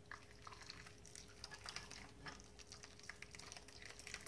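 Faint scraping and soft taps of a metal spoon against a saucepan as a thick soup-and-broth mixture is poured and scraped out over chicken in a baking dish, with a faint steady hum beneath.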